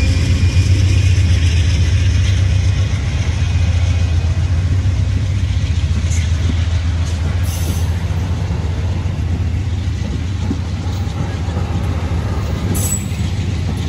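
Amtrak passenger cars, a baggage car and double-deck Superliner coaches, rolling past on steel wheels: a steady rumble of wheels on rail with a few brief high clicks, easing gradually as the train goes by.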